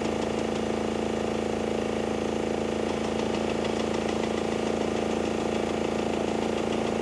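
Engine of heavy demolition machinery running steadily with a constant hum.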